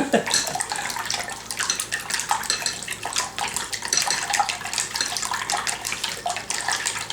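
Raw eggs being whisked in a bowl: quick, steady clicking of the utensil against the bowl with a wet, sloshing sound.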